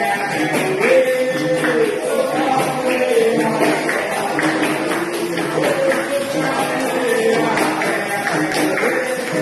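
Capoeira music: a sung melody in phrases over the steady jingling beat of a pandeiro (Brazilian tambourine).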